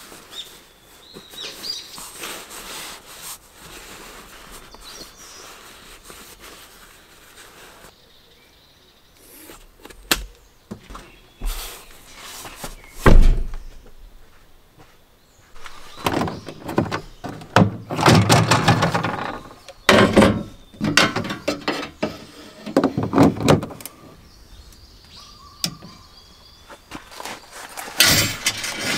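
A Land Rover Defender 110's side door swung shut with one heavy thunk about halfway through, the loudest sound. Before it, light bird chirps and small handling noises; after it, a run of knocks and clatter as camping gear is handled and set down.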